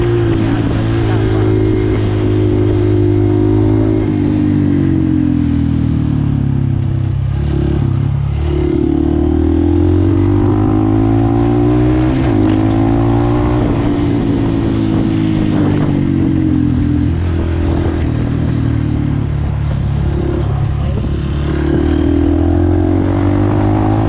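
Dirt bike engine heard from the rider's seat while riding. The revs climb and drop back several times as the throttle is worked through the gears.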